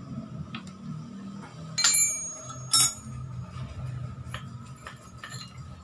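Small metal parts clinking while the 10 mm bolts of a manual gearbox's reverse-gear selector are unscrewed and handled: two louder ringing clinks about two and three seconds in, with lighter ticks between.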